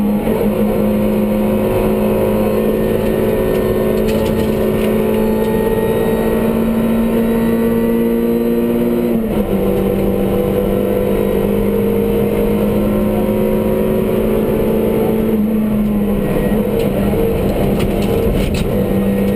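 Rally car engine heard inside the cabin, pulling at steady high revs with its note climbing slowly, then dropping sharply about nine seconds in as a gear is changed; it holds steady again with a brief dip near the end.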